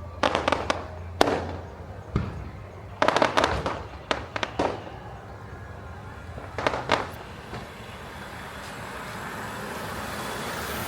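Fireworks bursting overhead: sharp cracks, some single and some in quick rattling clusters, through the first seven seconds. After that, an even rushing noise slowly builds.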